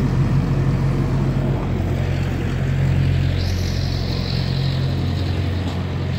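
Drain-jetting truck's engine and high-pressure pump running steadily with a low, constant hum, while a jetting hose clears a blocked kitchen drain line; a higher hiss joins for about a second and a half past the middle.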